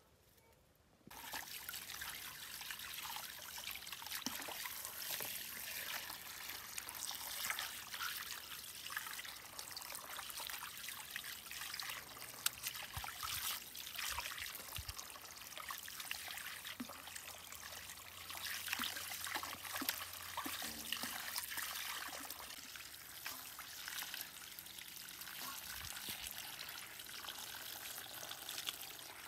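Water running and splashing in a basin as fish and herbs are washed by hand, starting suddenly about a second in.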